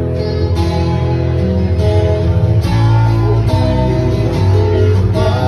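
Acoustic guitar strumming chords over a bass line, an instrumental passage of the song with no singing.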